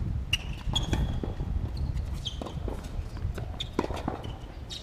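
Tennis rally on a hard court: sharp knocks of racquet strikes and ball bounces, with several short high squeaks and scuffs of tennis shoes as the players move.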